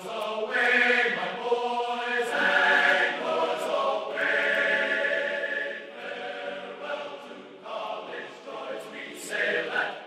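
Choral singing: several voices holding long notes in harmony that change every second or two.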